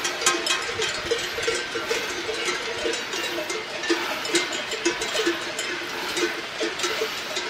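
Cowbells on a grazing herd of cattle, clanking at an uneven pace, several bells at different pitches ringing over one another.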